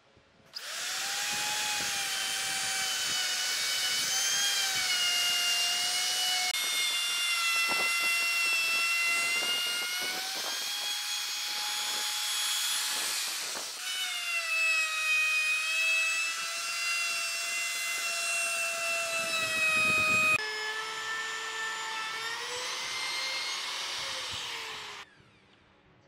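DCA electric plunge router running at speed and cutting a circular recess into a pine disc: a steady high-pitched motor whine over a rushing hiss. It starts about half a second in, wavers a little in pitch with a few abrupt jumps, and stops about a second before the end.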